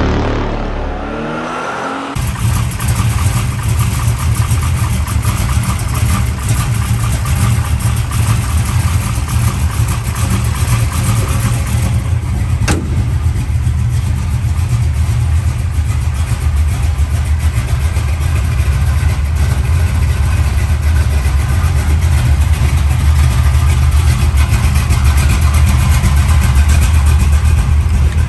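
1972 Chevrolet Nova's 383 V8 running steadily at idle, loud and low-pitched. Before it, a short intro sound effect falls in pitch and cuts off about two seconds in.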